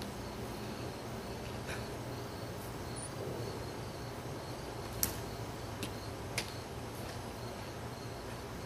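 A few sharp ticks of dried soup beans struck with a natural-finish Marucci wooden bat, the loudest about five seconds in, over a steady background of insects chirping.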